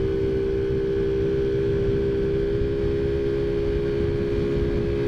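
Taotao Zummer scooter's 50cc four-stroke engine running at a steady cruising speed, a constant hum that holds one pitch, over a low rumble of wind and road noise.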